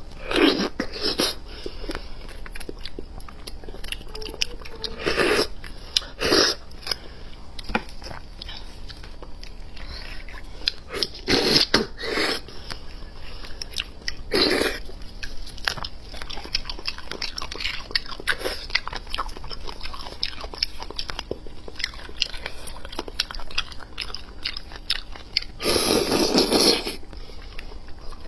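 Close-miked sucking and slurping of beef bone marrow straight from the cut bone, with wet chewing and small mouth clicks between. Loud slurps come about a second in, twice around five to six seconds, around twelve and fifteen seconds, and one longer slurp near the end.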